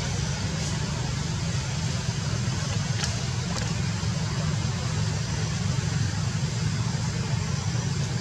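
A steady low rumble under an even hiss, with two faint clicks about three seconds in.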